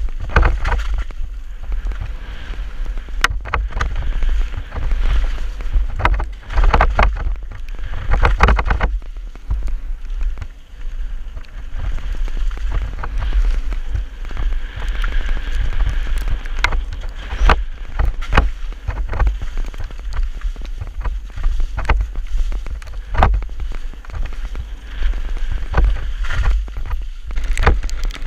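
Downhill mountain bike riding a wet dirt trail, heard from an action camera on the bike or helmet: wind rumbling on the microphone over continuous tyre noise, broken by frequent sharp clatters and rattles as the bike hits roots and rocks.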